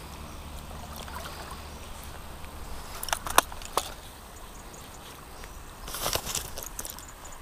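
Water sloshing and splashing in short bursts, a few about three seconds in and a cluster near six seconds, over a steady faint background of moving water.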